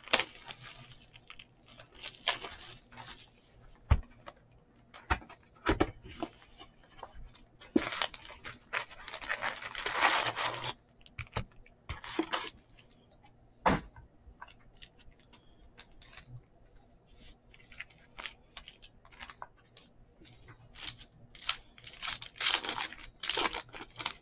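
A sealed trading-card box and its plastic card-pack wrappers being torn open by hand: several bursts of ripping, the longest about eight to ten seconds in, with wrapper crinkling and a few sharp taps between.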